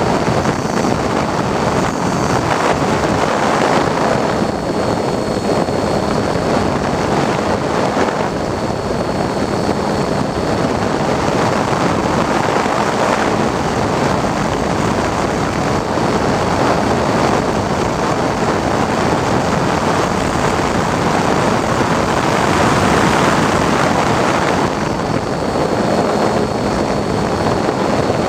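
RC flying wing's motor and propeller running steadily, heard from the onboard camera, under heavy wind rush over the microphone; the noise swells a little about twenty-two seconds in.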